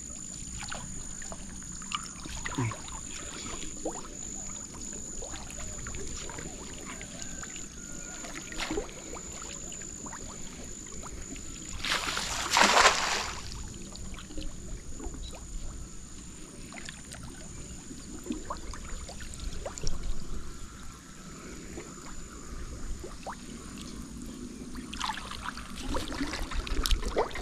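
Water sloshing and trickling around someone working in shallow water, with small knocks, and one louder splash about twelve seconds in.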